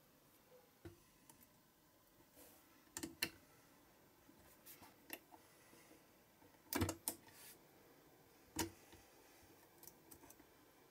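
Small metal parts and a metal clamping jig clicking and knocking as they are handled, in scattered faint clicks with a few louder knocks past the middle.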